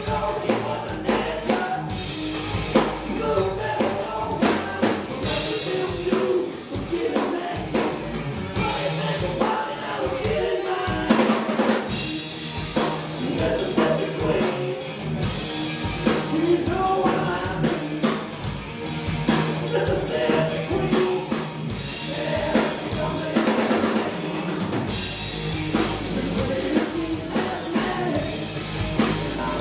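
Live rock trio playing an instrumental passage: electric guitar lines over a drum kit and bass guitar, with steady kick and snare hits and no vocals.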